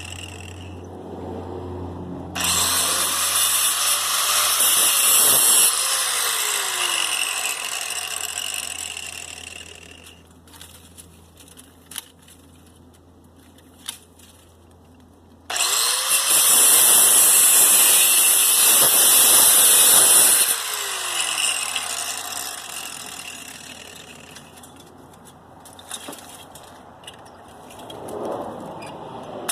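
Electric grinder with a cut-off wheel cutting into a motor's copper armature. It makes two long cuts with a pause between them, and the wheel winds down after each one.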